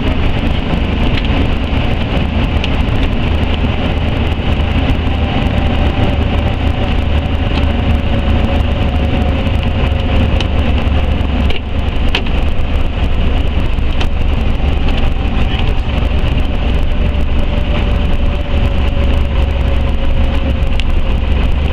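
Piston engine and propeller of a single-engine light aircraft running steadily, heard inside the cockpit as the plane rolls along the runway, with a faint tone that slowly falls in pitch.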